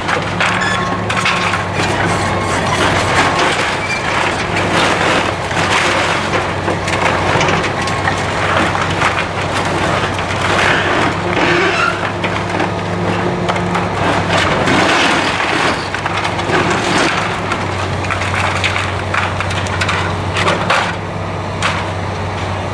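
Wooden building being torn down by heavy machinery: old timbers cracking, splintering and crashing continuously, over the steady hum of a running diesel engine.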